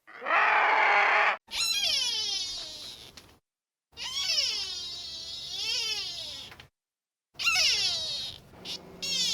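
A string of short animal calls cut together with dead-silent gaps between them: first a harsh, noisy call, then three drawn-out wailing calls whose pitch slides down or rises and falls, the longest in the middle.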